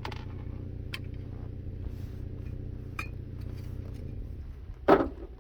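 Metal parts and hand tools clinking a few times as a truck's front axle is being taken apart, over a steady low hum. A louder clunk comes near the end.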